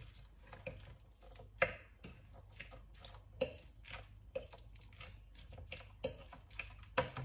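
A fork stirring a wet filling of tuna, chopped hard-boiled egg and tomato sauce in a glass bowl: irregular sharp clinks of metal on glass with soft squishing in between.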